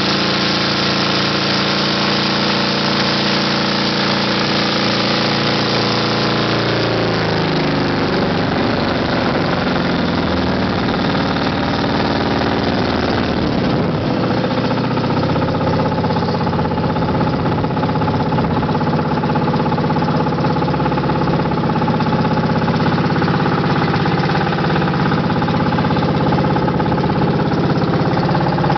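Outrigger boat's engine running steadily, then slowing: its pitch drops about seven seconds in, the note turns rough for a few seconds, and from about halfway on it runs steadily at a lower speed as the boat eases through shallow water toward the beach.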